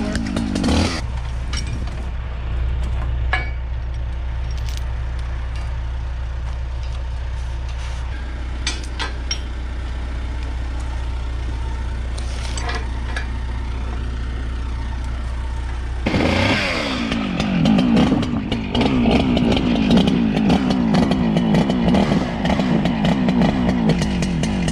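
Husqvarna 395 XP two-stroke chainsaw: it drops from high revs to idle under a second in and idles steadily with scattered clicks and knocks. About 16 seconds in it revs up and runs hard at full throttle, its pitch wavering as if under load in a cut.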